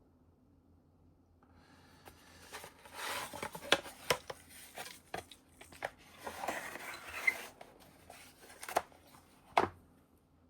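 A wooden watchmaker's parts assortment box being handled: rustling and scraping with a run of sharp clicks and knocks. It starts about a second and a half in, and one of the loudest knocks comes near the end.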